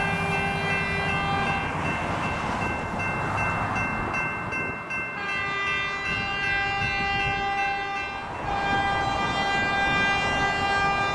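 Train horn sounding long blasts, with short breaks between them, as the slow caboose-first train nears a road crossing, over the low running of its diesel locomotive.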